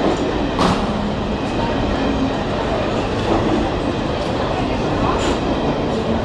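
Passenger train coaches rolling past a platform at speed: a steady rumble of steel wheels on rail, with occasional sharper clacks as the wheels cross rail joints.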